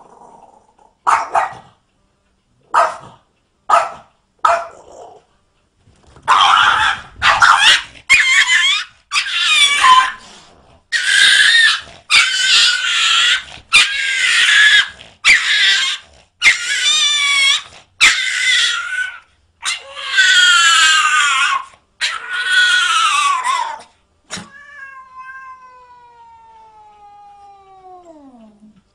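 A cat yowling in a long series of wavering, drawn-out calls, after a few short, sharp calls in the first five seconds. Near the end comes one long tone that slides steadily down in pitch.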